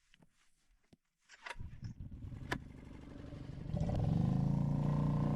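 A few faint clicks, then an engine's steady hum rises in about three seconds in and runs evenly.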